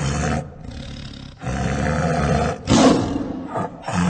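Tiger roaring: a string of loud, rough roars one after another, the loudest about three seconds in.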